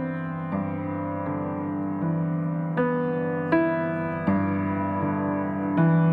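Background music played on a keyboard: calm, evenly paced notes or chords, a new one about every three-quarters of a second.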